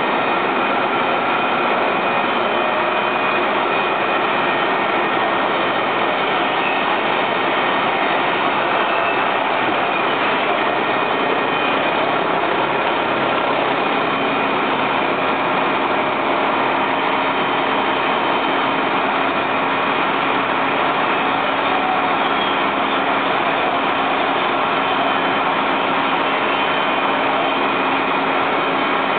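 Fire engine's engine running steadily: a constant loud drone with several steady tones in it.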